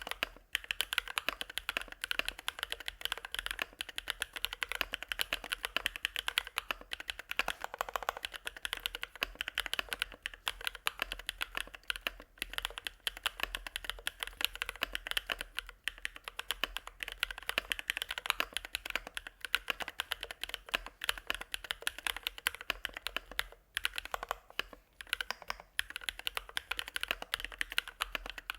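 Mechanical keyboard with fully hand-lubed Bsun Sunset Yellow linear switches typed on fast and continuously: a dense run of middle-low-pitched keystroke clacks with a few short pauses.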